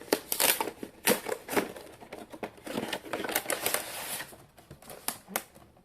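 A cardboard collector's box being opened and its contents handled: a run of sharp taps and clicks, with stretches of cardboard and paper rustling.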